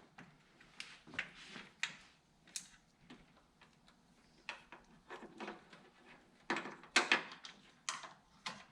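Small handling noises from wiring work: scattered light clicks and brief rustles as wires, butt connectors and hand tools are handled, with a louder cluster of clicks about seven seconds in.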